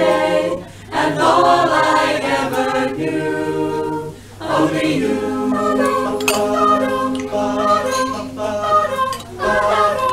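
Small choir singing a cappella, with short breaks between phrases about a second in and again around four seconds.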